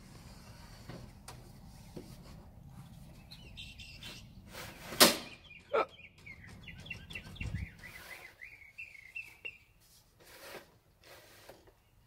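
Knocks and clicks from an RV's metal rear-window awning cover being pried and lifted free of the putty it was stuck on, with a sharp loud crack about five seconds in and a low thud a couple of seconds later. A run of high wavering chirps follows for a few seconds after the crack.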